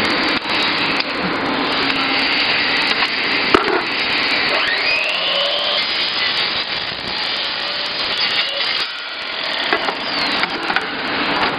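Downspout roll forming machine running, the metal strip grinding and rubbing through the forming rollers with a steady, dense mechanical noise. A single sharp knock sounds about three and a half seconds in.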